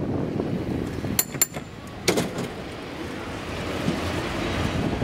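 San Francisco cable car rolling along its track, a steady rumble of wheels on rail. A few sharp clacks come about a second in and one more around two seconds in.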